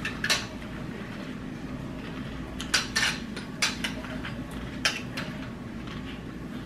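A spoon clinking against a cereal bowl: several sharp, light clicks spread out over a few seconds, above a low steady room hum.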